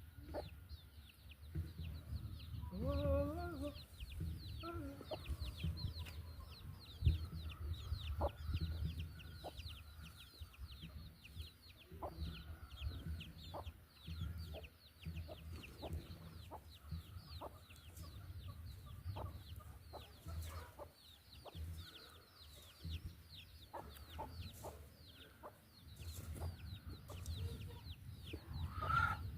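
Birds calling: a constant run of short high chirps, several a second, each falling in pitch, with a lower call about three seconds in. Scattered sharp knocks and a low rumble lie underneath.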